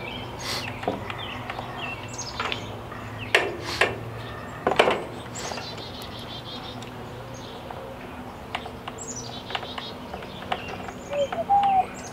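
Small birds chirping in short, falling calls, with several sharp clicks and knocks from hand-fitting a trimmer rack mount onto a string trimmer; the knocks are loudest about three to five seconds in.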